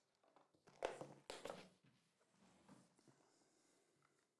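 Near silence, with a few faint short knocks and rustles about a second in as a cardboard trading-card box is picked up and handled on a desk mat.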